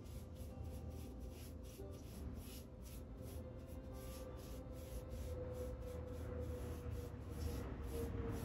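Paintbrush strokes on a window frame: soft rubbing strokes repeating quickly and evenly, about three a second.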